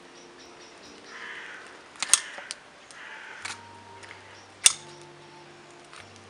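Poultry shears cutting up a half-roasted chicken: short crunching cuts with sharp clicks as the blades snap shut, the two loudest about two seconds and four and a half seconds in.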